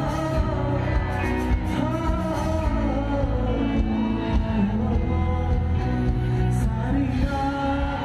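Live rock band playing a song through a concert PA: a man singing over acoustic guitar, with drums, bass and electric guitar behind him, heard from within the audience.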